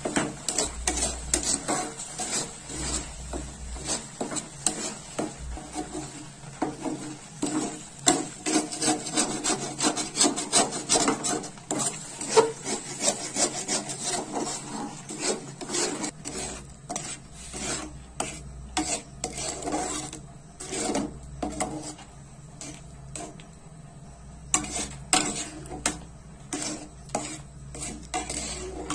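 A spatula scraping and stirring thickening mango pulp and sugar in a metal kadai, with many quick, uneven scraping strokes against the pan as the jelly cooks down.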